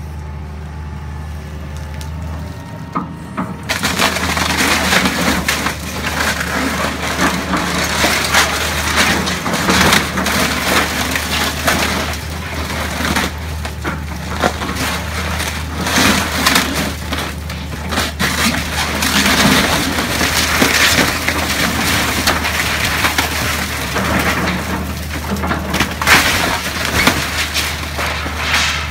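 Hitachi excavator's diesel engine running steadily while its bucket crushes a wooden house roof. From about four seconds in there is continuous cracking, splintering and crunching of roof boards and shingles over the engine hum.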